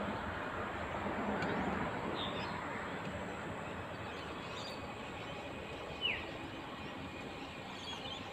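Outdoor traffic ambience: a steady wash of distant road noise that slowly fades, with a short high chirp falling in pitch about six seconds in.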